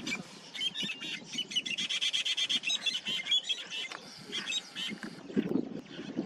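Bird calls: a rapid run of short, high-pitched chirping notes that keeps going for several seconds, then trails off near the end.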